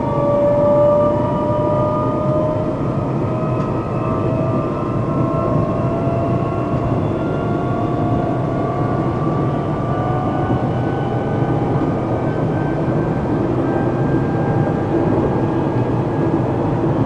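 Traction motors of an SNCB AM96 electric multiple unit whining as the train picks up speed. Several tones climb slowly and steadily over a dense low rumble, heard from inside the train.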